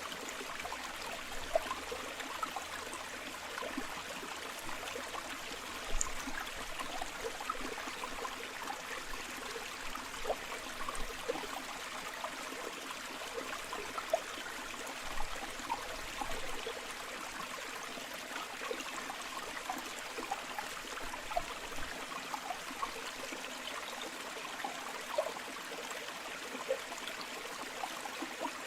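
Flowing river water: a steady rushing sound with many small gurgles and drips scattered through it.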